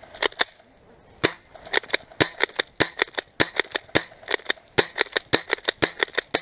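Airsoft guns firing: a quick run of sharp cracks, a couple at first and then several a second from about a second in.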